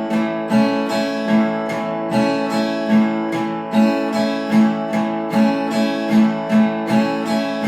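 Acoustic guitar strummed on an A major chord in a steady alternating down-up pattern, about two to three strokes a second, switching between the lower strings and the top strings.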